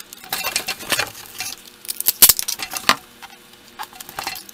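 Hands taping a lens into a hole in a cardboard box: scratchy rustling of tape and cardboard with sharp clicks and crackles in irregular bursts, busiest in the first half.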